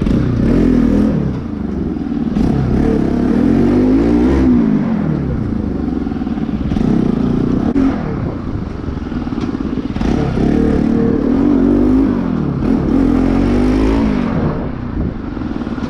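Modified Bajaj Pulsar NS200 motorcycle's single-cylinder engine being ridden and revved hard, its pitch climbing and dropping back about five times.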